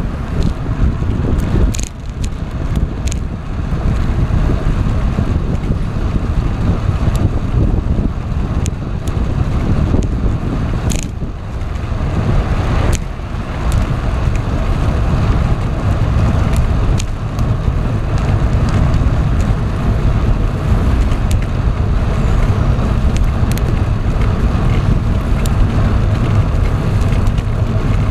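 Wind buffeting the microphone of a bicycle-mounted camera while riding, over steady road rumble, with a few sharp ticks now and then.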